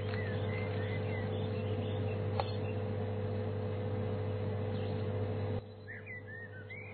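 Vending machine humming steadily, with a single click about two seconds in and birds chirping. The hum cuts off suddenly shortly before the end, leaving only the birds.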